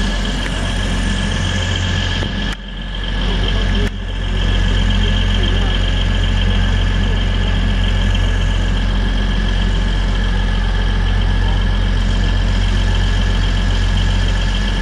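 Network Rail 950001, a Sprinter-type diesel multiple unit, passing with its diesel engines running in a steady drone. The level dips sharply for a moment twice, about two and a half and four seconds in.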